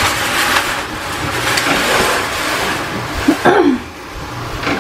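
Water running steadily from a kitchen tap into the sink, a loud even rush that stops about four seconds in.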